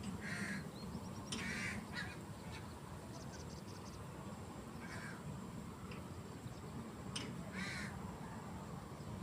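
Crows cawing: four short, separate caws spread a second or more apart, with a brief quick twitter from a smaller bird about three seconds in.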